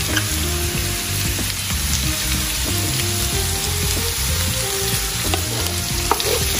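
Carrot strips and chicken sizzling steadily in a hot wok as they are stir-fried with a wooden spatula, with a few light taps of the spatula near the end.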